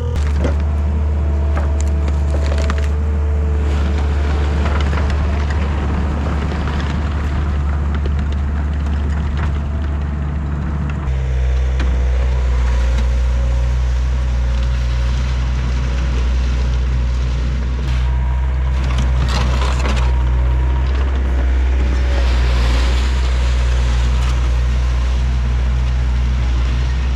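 Compact track loader's diesel engine running steadily under work, with clattering and scraping noise over the engine. About eleven seconds in, the engine note changes abruptly to a deeper, steadier hum.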